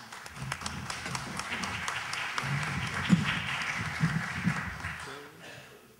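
Audience applauding at the end of a talk, starting at once and dying away after about five seconds.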